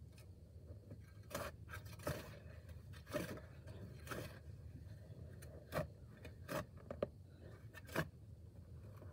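Metal shovel blade chopping and scraping into hard clay soil through grass, about eight irregular strikes, some drawn out into short scrapes.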